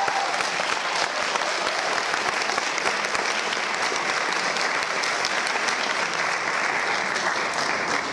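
Audience applauding, steady clapping that dies away at the very end.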